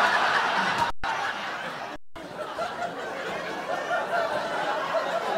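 Theatre audience laughing together in a long wave of laughter that slowly dies down. The sound drops out completely for a split second twice, about one and two seconds in.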